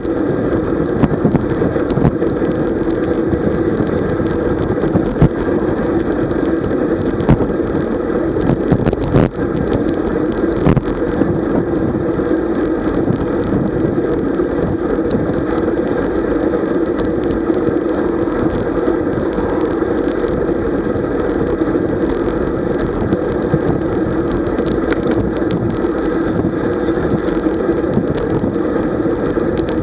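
Wind rushing over the microphone and tyre hum from a road bike riding in a group at about 40 km/h, with a few sharp knocks in the first ten seconds.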